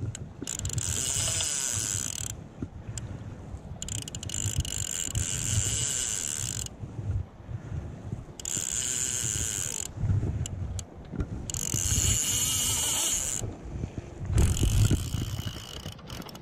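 Salmon fly reel's click-and-pawl drag buzzing in four spells of about one and a half to three seconds each, as line runs through it while a hooked salmon is being played.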